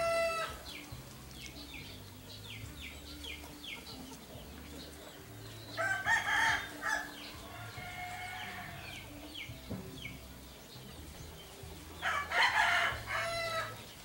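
Rooster crowing three times: a crow ending just after the start, another about six seconds in and a third near the end. Small birds chirp in between.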